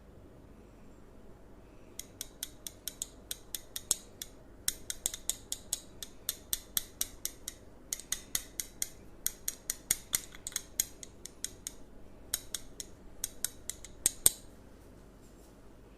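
Barber's scissors snipping in quick runs of sharp, crisp clicks, about four to five snips a second, with short pauses between the runs.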